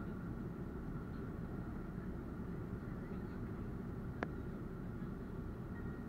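Steady low rumble of an airliner in descent, heard inside the cabin: jet engines and airflow. A single sharp click about four seconds in.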